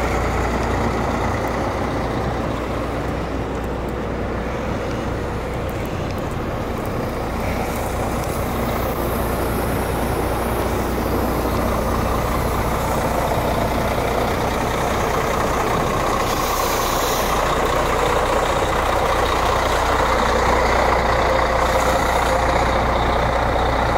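MAN TGA 35.410 vacuum truck's diesel engine idling steadily, with a short hiss about two-thirds of the way through.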